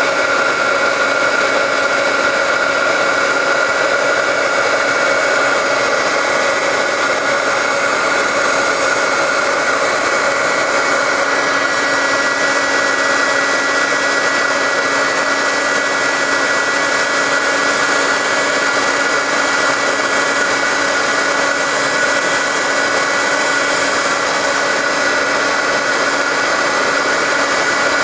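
Heat gun running steadily, a fan whine over a rush of hot air, blowing on embossing powder to melt it.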